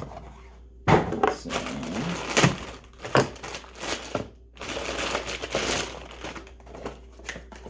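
Packaging being handled and opened: crinkling and rustling in two spells with a few sharp cracks.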